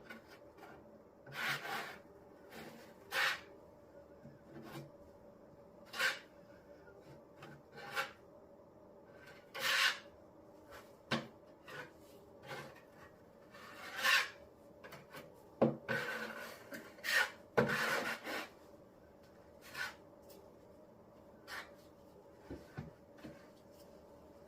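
Henry Feather Finish cement skim coat being spread and scraped across a laminate tabletop with a spreading tool: irregular scraping strokes, about one every second or two, closest together around the middle.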